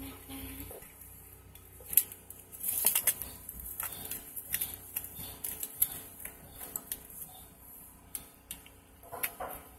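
Scattered clicks, knocks and scrapes as a PVC drain pipe is worked into a rubber coupling with metal clamp bands. The sharpest knock comes about two seconds in, with a quick cluster just after.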